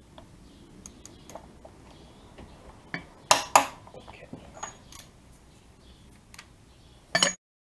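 Metal tools clinking and knocking, with two loud sharp metallic clacks a moment apart about three seconds in and another loud clatter just before the sound cuts off.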